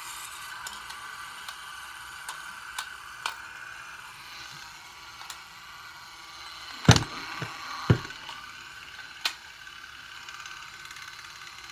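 Wound-up mechanism of a vintage Keystone Capri K-25 movie camera running with a steady whir as the film reel unwinds, with scattered light ticks and two louder knocks about seven and eight seconds in.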